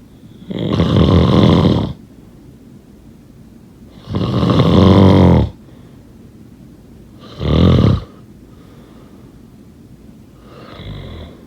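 A sleeper snoring: four snores about three seconds apart, the third short and the last one fainter.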